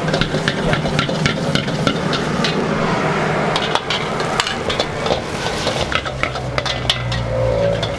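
A metal ladle scraping and clanking against a wok as fried rice is stir-fried over a high gas flame, with sizzling throughout. Underneath is a steady low rumble from the wok burner that grows stronger near the end.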